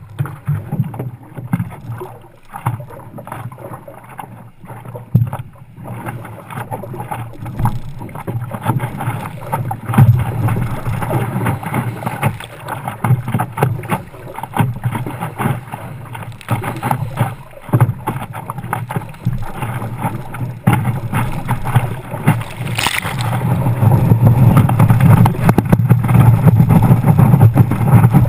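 Water sloshing and splashing against a stand-up paddleboard. The rush of water grows louder over the last few seconds as the board rides a breaking wave.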